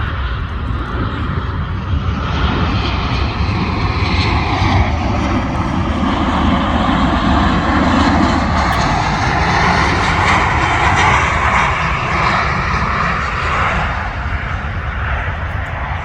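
Jet airliner passing, its engine noise swelling to a peak midway and easing off near the end.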